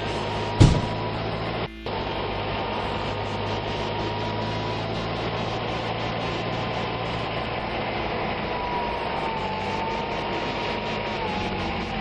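Steady engine hum with hiss from a cartoon vehicle sound effect, with a single thump about half a second in.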